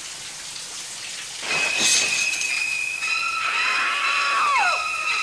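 Shower spray hissing, then about a second and a half in a sudden rush as the shower curtain is torn open. Right after it come shrill, held screeching violins and a woman's scream, with the strings sliding down in pitch again and again near the end.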